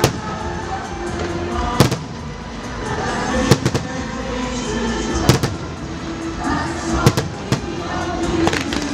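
Aerial fireworks bursting overhead, a sharp bang every second or two, over music playing throughout.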